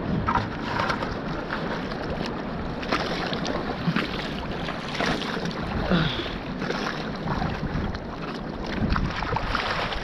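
Sea water sloshing and splashing around a bamboo raft as it is paddled, with wind rumbling on the microphone.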